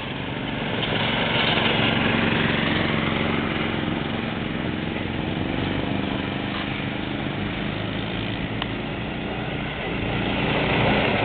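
Small off-road buggy's engine running as it drives along a dirt track, growing louder near the end as it comes closer.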